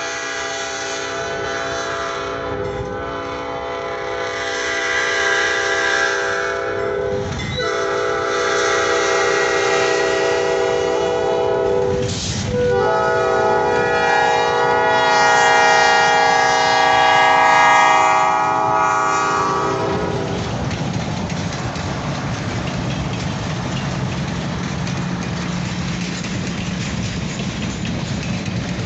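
Diesel locomotive air horn sounding the grade-crossing signal as the train nears the crossing: two long blasts, a short one and a final long one, each a chord of several steady notes. After the horn stops, the low rumble of the approaching train takes over.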